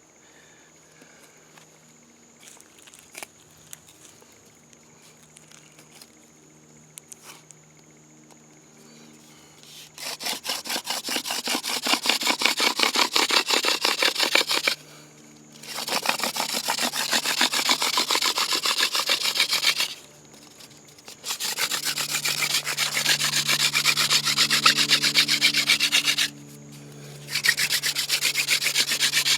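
Yucca hand-drill spindle spun between the palms in a trumpet vine hearth board: a quiet start with a few small knocks, then rapid wood-on-wood rubbing in four bouts, each broken by a short pause as the hands go back to the top of the spindle. The spindle is burning in to the board.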